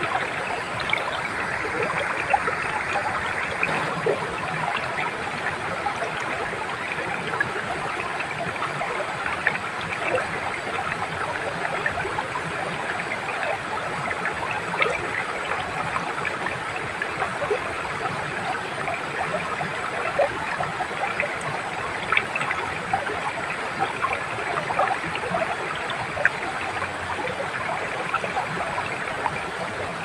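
Small waterfall splashing into a rocky pool and a shallow mountain stream running over rocks: a steady rush of water with many small splashes and babbling.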